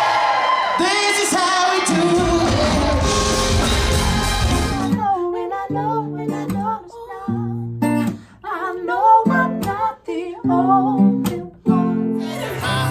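Loud, dense music for about the first five seconds, then an abrupt change to a woman singing over acoustic guitar chords, with short gaps between phrases; near the end the sound switches back to a fuller mix.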